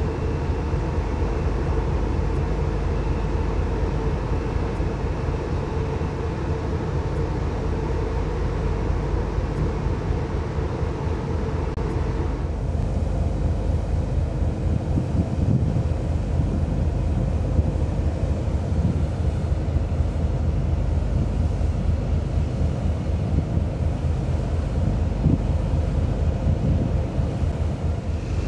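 Steady low rumble and hum of a ro-ro passenger ferry's machinery and ventilation, heard on its open deck. About twelve seconds in the sound shifts: the hum drops away and gusts of wind buffet the microphone over the rumble.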